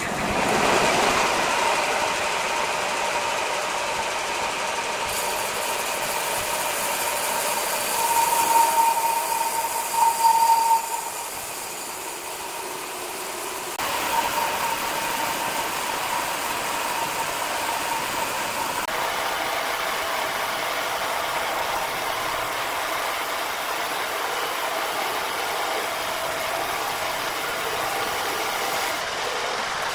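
Large horizontal band sawmill running, its blade cutting lengthwise through a big hardwood log: a steady mechanical whir with a held whining tone. The whine swells louder for a few seconds about eight to eleven seconds in.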